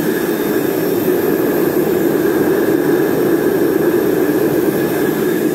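Hair dryer running steadily as the blower of a homemade melting furnace, forcing air through a pipe into the burning fuel: a steady rushing roar with a faint motor whine on top.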